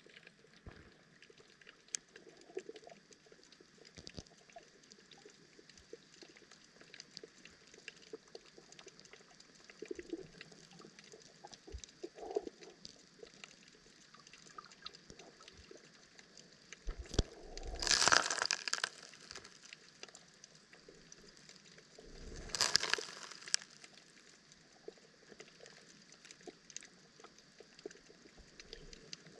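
Underwater ambience in shallow seawater: a faint hiss scattered with tiny crackling clicks. About halfway through, and again a few seconds later, a louder rush of water swells up and fades over a second or two.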